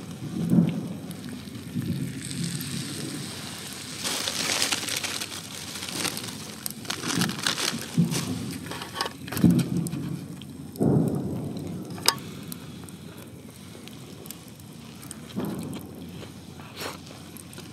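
A person eating close to the microphone: bites and chewing come as dull low thumps every second or two, with a wood fire crackling behind and a sharp click about twelve seconds in.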